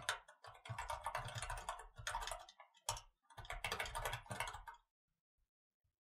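Mechanical keyboard being typed on fast: a rapid run of key clicks, a short pause with a single keystroke about three seconds in, then a second fast burst that stops about five seconds in.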